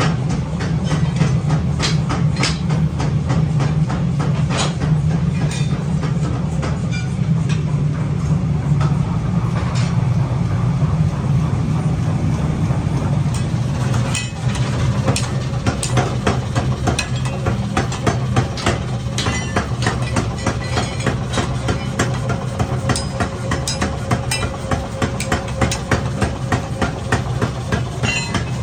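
Forged steel pickaxe heads clanking against each other as they are picked up and set down on a pile, over a steady low machinery hum. The clanks come thicker and more regular in the second half.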